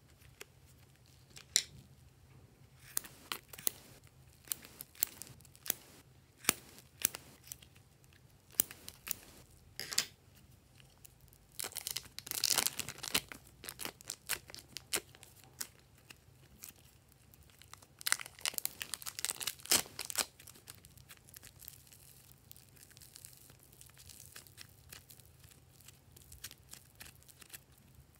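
Thin plastic zip-lock bags of soft clay crinkling and crackling as they are handled, opened and the clay is squeezed out of them, in a run of sharp crackles with two denser bursts, around twelve and nineteen seconds in. Near the end only faint handling sounds remain as the clay is stretched.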